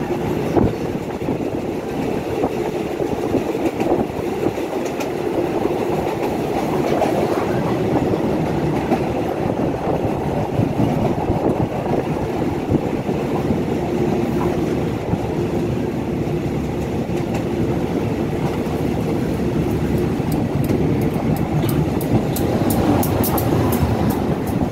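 Train running along the rails, heard from aboard through an open window: a steady rumble of wheels and running gear, with a run of sharp, rapid clicks near the end.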